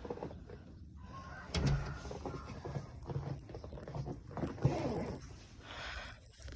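Dogs whining and stirring as they are let out, with shuffling and a couple of dull thumps.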